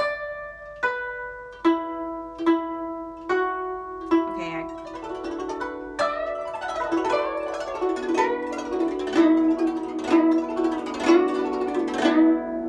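Guzheng plucked: a slow line of single ringing notes, about one a second, then a denser passage with many notes sounding together.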